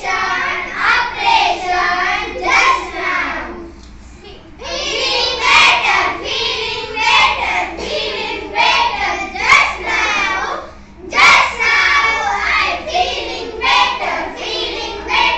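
A group of schoolchildren singing a poem together in unison, with a short break about four seconds in and a brief one near eleven seconds.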